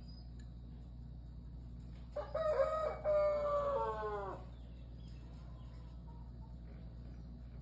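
A single loud, pitched animal call lasting about two seconds, starting about two seconds in: a short first part, then a longer held note that drops in pitch at the end. A low steady hum runs underneath.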